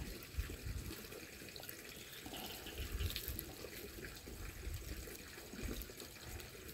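Faint trickle of water in a small irrigation ditch beside a rice field.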